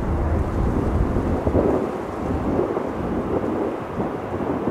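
Airbus A320-214's CFM56-5B jet engines at takeoff climb power, a rumble heard from the ground as the airliner climbs away; the deepest part of the rumble drops off about two seconds in.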